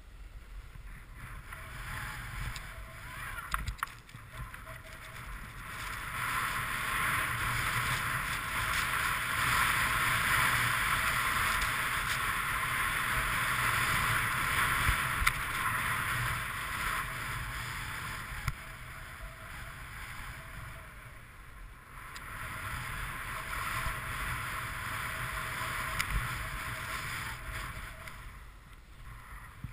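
Snowboard sliding and carving over snow: a steady scraping hiss with a low rumble underneath. It swells louder through the middle of the run and eases off for a moment twice toward the end.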